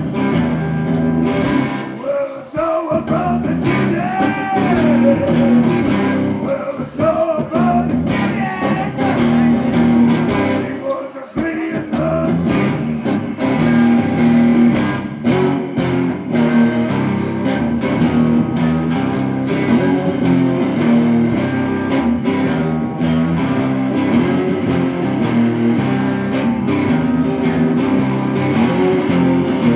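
Live blues-rock music: electric guitars, one a semi-hollow-body, played through amplifiers over a steady beat, with gliding, bent notes about four to eight seconds in.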